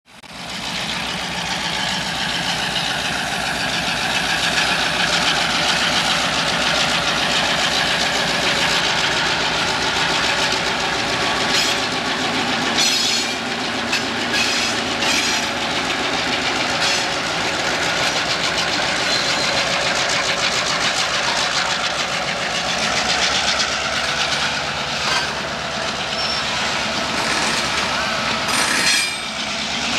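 Diesel freight locomotives running past under power, a steady engine drone with the rumble of the train's wheels and scattered sharp clicks from the wheels crossing rail joints.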